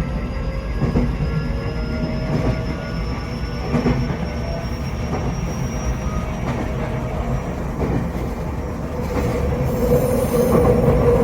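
Tokyo Metro 8000 series electric train running, heard from inside the car: a steady rumble with wheels clicking over rail joints, and a thin high tone slowly rising in pitch. About nine seconds in, a louder steady hum sets in. The running sound is rough and discordant, which the uploader suspects comes from only one axle of the bogie having had its wheels reprofiled.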